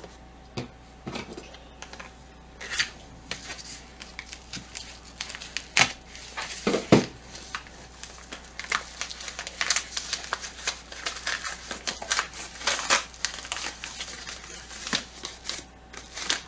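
A box being opened and unpacked by hand: irregular crinkling and rustling of packing material, with scattered clicks and light knocks as items are handled.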